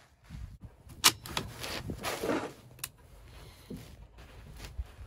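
A single sharp gunshot about a second in, then rustling and a click as a shooter settles in behind a bolt-action rifle on the bench.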